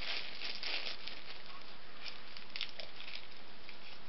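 Steady hiss with a few faint, scattered rustles and light taps of small packets and containers being handled.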